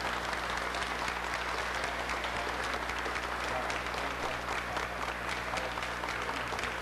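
A crowd applauding steadily, many hands clapping, with a steady low hum underneath.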